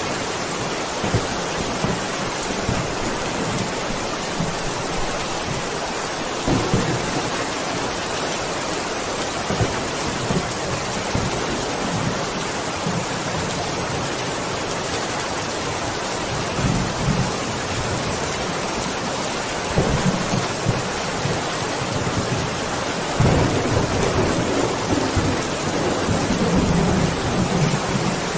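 Steady heavy rain with thunder rumbling several times, the longest and loudest rumble in the last few seconds.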